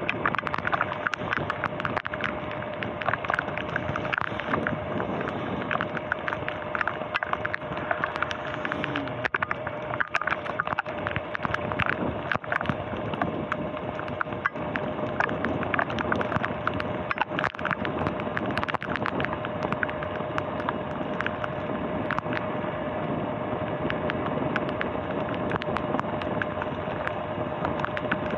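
Sur-Ron X electric dirt bike cruising on a wet road: a steady rush of wind and tyre noise with an even electric motor whine, and frequent sharp ticks throughout.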